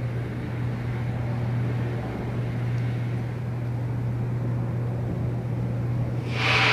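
Steady low mechanical hum from the Skyscraper thrill ride's drive machinery. Near the end a loud rushing noise starts suddenly.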